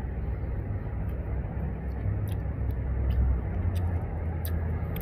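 Steady low outdoor rumble, with a few faint scattered clicks.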